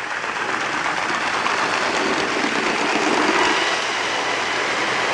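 Custom LEGO 9V TGV model train running on LEGO 9V track: its small electric motor whirring and wheels rolling on the metal rails, growing louder as it approaches, loudest about three seconds in.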